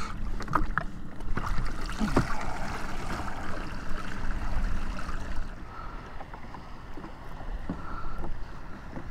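Water splashing and sloshing against the side of a jet ski as a floating live-bait bucket is hauled up out of the water on its rope, with a few light knocks of handling. It gets quieter about halfway through.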